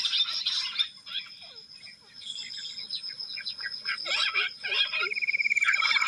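Jungle bush quail calling in a chorus of short chirping whistles. The calling thins out about a second in to scattered chirps, then builds again near the end, where a fast, even trill comes in.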